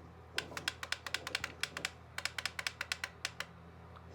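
Small plastic buttons on a Jensen JEP-250 weather radio clicked rapidly to set the clock, in two quick runs of clicks with a short pause between, over a steady low hum.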